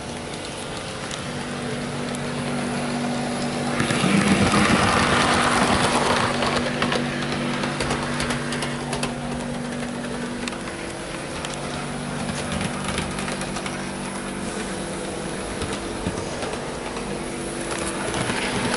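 Hornby OO gauge HST power car model running along its track at a modest speed: a steady electric-motor hum with light clicking from the wheels. It grows louder for about three seconds from four seconds in, then settles back.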